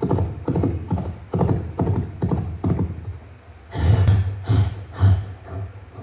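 Rhythmic clip-clop of hoofbeats, about two to three strokes a second, turning heavier with deeper thuds about four seconds in.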